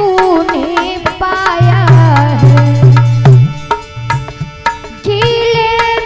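Devotional bhajan music between sung lines: tabla drumming under a gliding melody, with a run of heavy bass drum strokes from about one and a half to three and a half seconds in.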